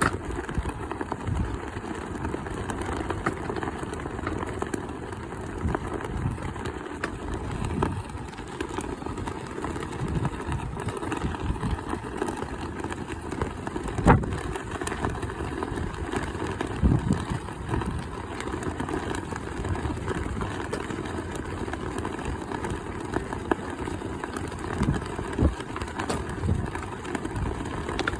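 Strong wind buffeting the microphone: a steady low rumble with irregular gusts and thumps, the sharpest about halfway through.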